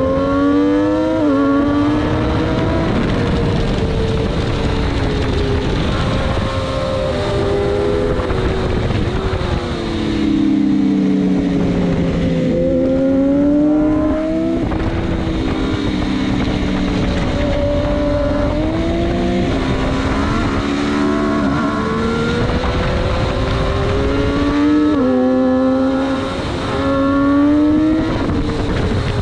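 600 cc sportbike engine at full racing pace. The revs climb and step down with each upshift, drop away under braking and downshifts about ten seconds in, then climb again through a quick run of upshifts near the end. Heavy wind buffeting runs underneath.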